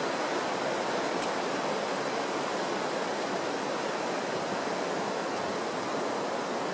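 Steady rush of a rocky mountain creek, water running over rocks and small cascades.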